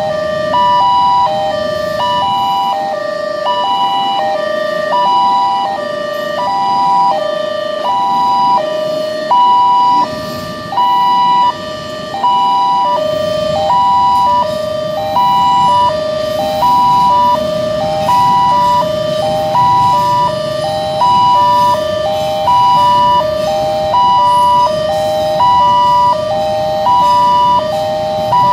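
Railway level-crossing warning alarm ringing over and over: an electronic run of falling tones that repeats about every second and a half. Under it, from about halfway through, comes the low rumble of a freight train running over the crossing.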